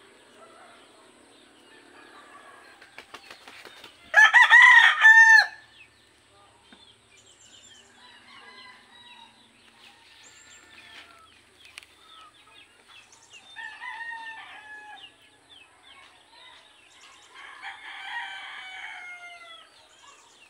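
A rooster crows loudly close by about four seconds in. Fainter crowing calls follow about two-thirds of the way through and again near the end.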